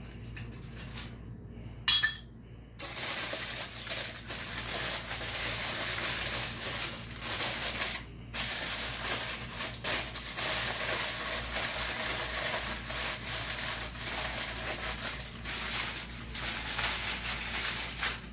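A metal spoon gives one sharp clink against a glass bowl about two seconds in. Then aluminium foil crinkles and rustles steadily as it is folded and scrunched shut into a parcel around the food.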